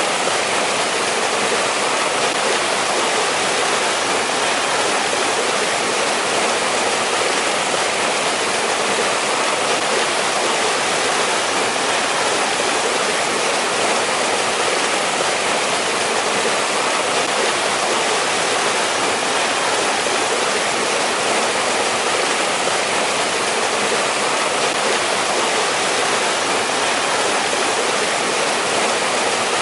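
Mountain valley stream in winter, water rushing and splashing over rocks in a steady, even rush.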